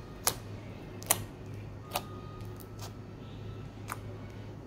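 Hands squeezing and stretching soft slime, giving five sharp clicks and pops a second or so apart as trapped air pockets burst, over a low steady hum.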